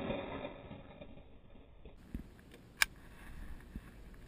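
The echo of a handgun shot rolling away and fading over about a second. Then come a few sharp clicks and light handling noise from a long gun being readied to fire, one click louder than the rest.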